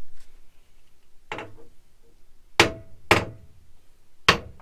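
Four hammer blows on a seized metal propeller-shaft coupling, the first lighter and the last three hard, each with a short metallic ring; the coupling does not budge.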